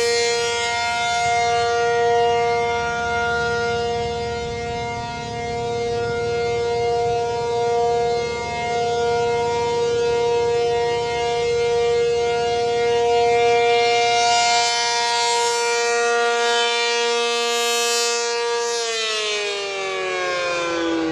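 American Signal T-135 dual-tone siren sounding a steady Alert for its monthly test: two tones held together, swelling and fading in loudness as it rotates. Near the end the cut-off comes and both tones start sliding down in pitch as it winds down.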